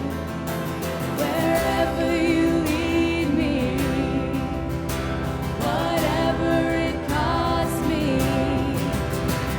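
Live worship band playing with sung vocals: held, wavering vocal lines over a steady band accompaniment.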